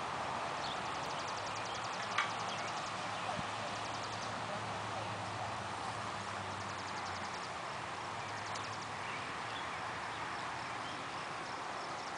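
Hoofbeats of a bay horse moving off under a rider on the sand of a riding ring, over a steady outdoor hiss, with one sharp click about two seconds in.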